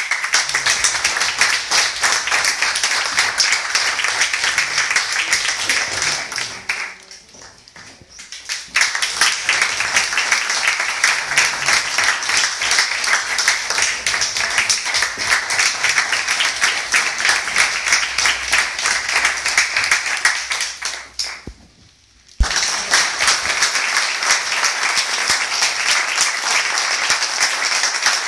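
Audience applauding in three rounds, breaking off briefly about seven seconds in and again about twenty-one seconds in.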